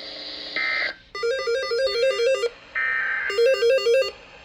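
Emergency Alert System end-of-message data tones: a short steady electronic chirp about half a second in and again near three seconds, each followed by a rapid, buzzy sequence of stepping electronic beeps. The pattern marks the close of the flash flood warning broadcast.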